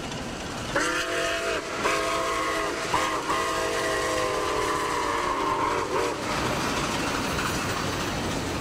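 Steam locomotive whistle blowing several tones at once: two short blasts, a very brief toot, then a long blast that sags in pitch as it ends. A steady noise of the running train lies under it and carries on after the whistle stops.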